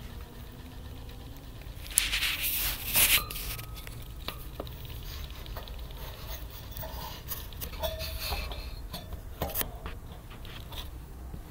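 Hamster running in a plastic exercise wheel: light pattering of its feet and small clicks and rattles from the turning wheel. A louder, noisy rustle comes about two seconds in and lasts around a second.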